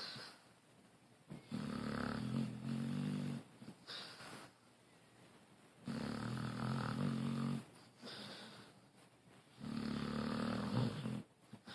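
Slow, regular snoring: three long snores about four seconds apart, each lasting one and a half to two seconds, with quieter breaths between them.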